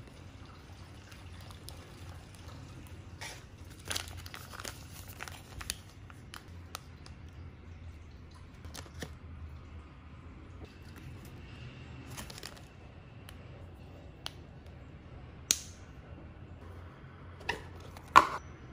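Plastic wrap around an instant noodle block and foil seasoning sachets crinkling as they are handled, with scattered light clicks and a few sharper taps near the end.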